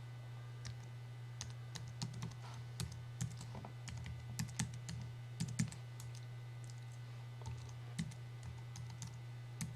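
Computer keyboard typing: irregular, light key clicks as a password is entered, over a steady low electrical hum.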